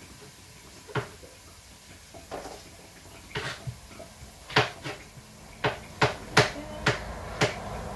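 Knife cutting mushrooms on a chopping board: irregular sharp knocks, sparse at first and coming faster, about two a second, in the second half.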